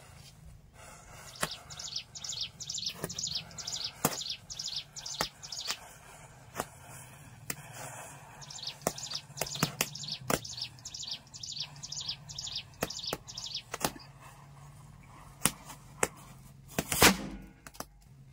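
Matchstick chain and small fireworks burning, with scattered crackles and sharp pops and a louder short fizzing burst near the end. A bird calls in runs of quick, high, falling chirps behind it.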